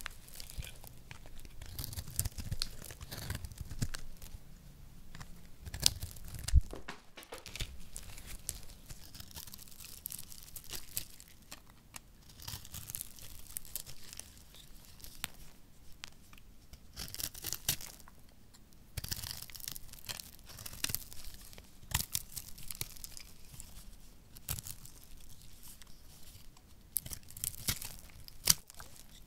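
A small knife cutting and scraping through dry, hard soap, with crisp crackling and crunching as thin slices and small cubes break off and crumble. The scraping comes in irregular stretches, with a few sharp snaps louder than the rest.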